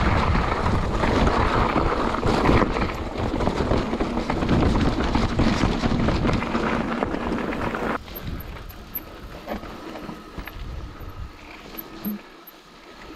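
Mountain bike riding fast down a loose gravel trail: wind buffeting the action camera's microphone, mixed with tyre crunch and the bike's rattle. About eight seconds in the noise drops suddenly to a much quieter hiss with a few faint clicks.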